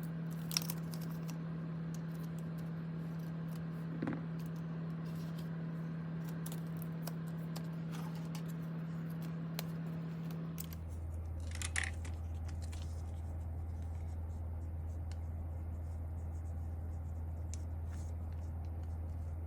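Small scattered clicks and scrapes of keyboard parts being handled during disassembly, with sharper clicks about half a second in, near 4 seconds and near 12 seconds. A steady low hum runs underneath and drops to a lower pitch about 11 seconds in.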